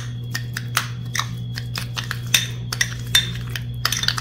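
A spoon stirring yogurt and dry green tea together in a cut-glass bowl, clicking and scraping against the glass in short, irregular taps, several a second.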